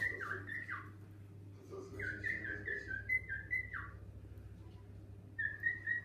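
Cockatiel whistling a tune: quick phrases of short stepping notes, each ending in a falling glide, the same phrase given three times.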